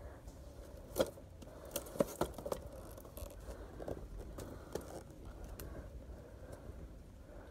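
Boxed bathroom scale being handled: pulled off a wire store rack and set into a shopping cart. Cardboard scrapes and a few sharp knocks, the loudest about one and two seconds in.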